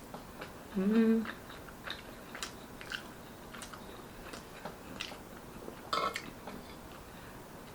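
Close-miked chewing and wet mouth clicks and smacks while eating, with a short closed-mouth "mm" hum about a second in and a louder smack around six seconds in.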